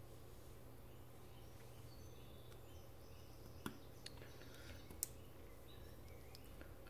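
Faint clicks of a craft knife blade cutting parts out of a laser-cut model sheet: a few small sharp ticks from a little past halfway, the sharpest about five seconds in, over a steady low hum.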